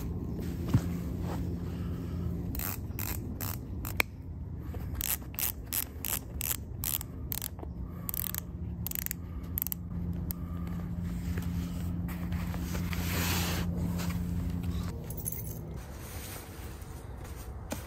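Hiking shoe being put on and its laces pulled tight: a run of short, quick scrapes, with a couple of sharp clicks.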